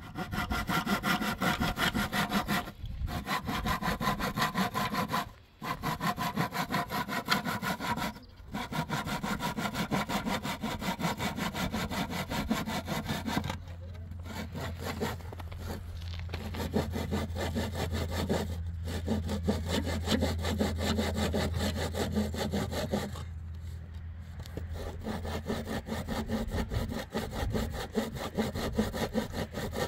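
A saw cutting through wood in long runs of quick strokes, broken by several short pauses.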